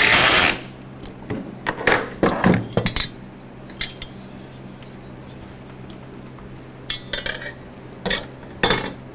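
Metal parts clinking and clattering as a scroll saw's steel arm and hand tools are handled and set down on a table: a loud rattling scrape at the start, then scattered clicks and knocks.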